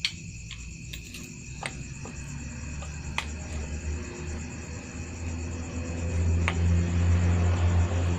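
Crickets or similar insects chirring steadily, with a low rumble swelling in the second half and a few sharp clicks.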